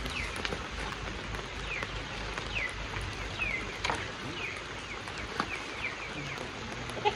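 A bird repeating a short falling chirp about once a second over a low steady rumble, with a few sharp clicks from the pomelo tree's branches being handled, the loudest near the end.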